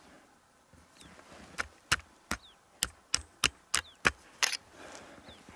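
Ramrod seating a ball down a traditional muzzleloader's barrel: about nine sharp knocks over three seconds, the last one a short scrape.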